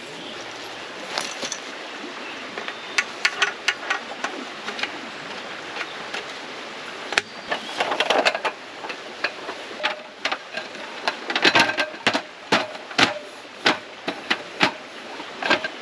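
Camping gear being handled during camp setup: irregular sharp knocks and clicks of things being moved and set down, sparse at first and busier later on, over a steady background hiss.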